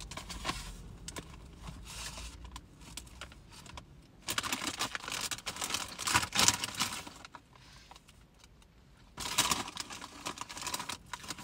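Crisp packet crinkling and rustling as a hand rummages inside it for crisps, in two loud spells: one about four seconds in and another near the end.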